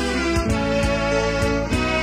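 Instrumental break in a Malayalam Christian devotional song: held melody notes over a steady bass line, with no singing.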